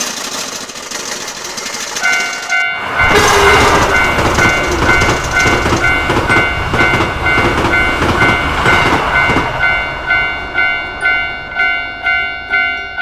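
Railroad crossing warning bell ringing its repeating 'kan-kan' at a little under two strikes a second, starting about two seconds in. A train rumbles and rattles loudly over the track from about three seconds in until nearly ten seconds, after a hissing rush in the first couple of seconds.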